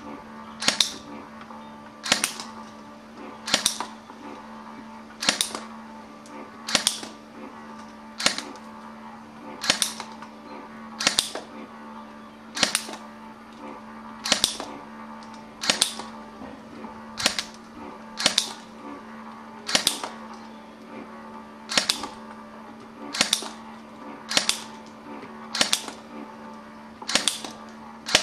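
Electric airsoft pistol (AEP) firing single shots in a steady series, about twenty sharp cracks roughly one every second and a half, over a faint steady hum.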